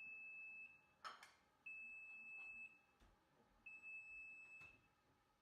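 Oven timer beeping: a single high steady tone about a second long, repeated every two seconds, signalling that the baking time is up. A short click about a second in.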